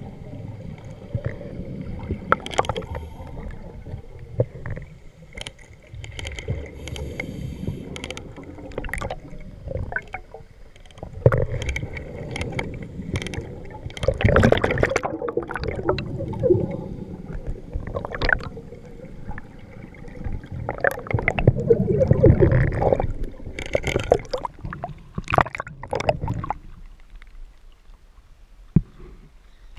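Scuba regulator breathing underwater: irregular bursts of exhaled bubbles gurgling and rumbling past the camera, with sharp clicks in between. It turns quieter near the end, at the surface.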